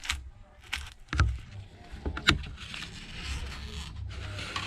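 A few sharp clicks and knocks of a plastic prying card and the tablet being handled, then a steady scraping, crackling noise as the card works through the adhesive under an iPad Air 3 screen.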